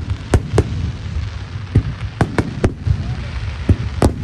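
Fireworks display: about eight sharp bangs and cracks go off in an irregular series over a low, continuous rumble.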